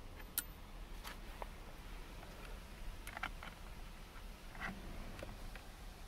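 A few scattered light clicks and taps of hand tools and parts being handled at a steering wheel hub, at irregular intervals over a faint low hum.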